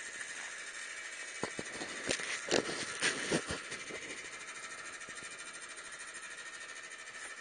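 Chairlift chair rolling through a lift tower's sheave wheels: a run of clacks and clunks about a second and a half in, lasting about two seconds, over a steady hiss.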